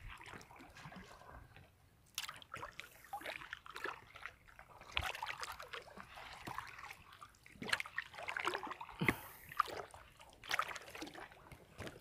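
Seawater splashing and sloshing close to the microphone, in irregular small splashes and trickles.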